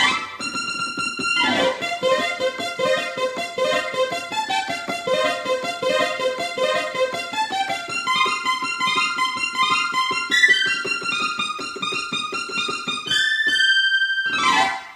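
Korg Krome synthesizer playing an M1-style keyboard patch: a quick, busy figure of rapidly repeated pitched notes. Near the end a held note gives way to a fast sweep downward.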